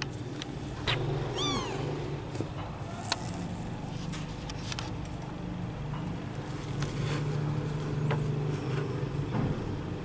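A kitten gives one short, high mew that falls in pitch about a second and a half in, with a few light clicks and taps, over a steady low hum.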